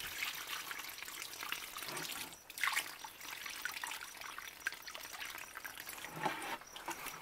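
Water pouring steadily from a plastic jug's spout onto garden soil, splashing and trickling as it floods and pools around the plants. The flow briefly falters about two and a half seconds in.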